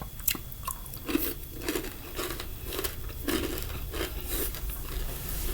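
Chewing crispy fried chicken gizzards close to the microphone: a steady run of crunches, about two a second.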